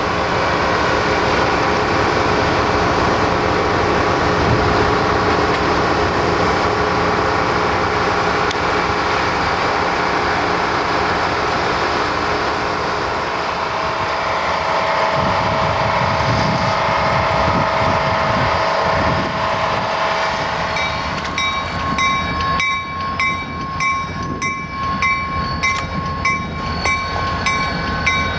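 Diesel locomotives of a rail-lifting work train running, a steady loud drone. About three quarters of the way through, a rapid, evenly repeated ringing joins it.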